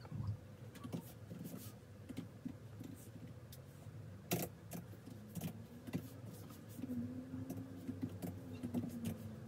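Typing on an ASUS ROG Zephyrus G14 laptop keyboard: irregular key clicks, with one sharper key strike about four seconds in. A faint low hum comes in during the second half.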